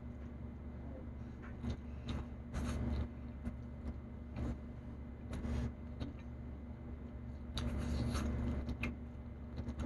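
Close-up eating sounds from someone eating with her hands: chewing, wet lip smacks and clicks at irregular moments, over a steady low electrical hum.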